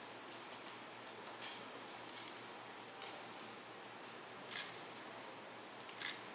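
Camera shutter clicks in a quiet room, four short snaps spread a second or two apart, one of them just after a brief focus-confirm beep.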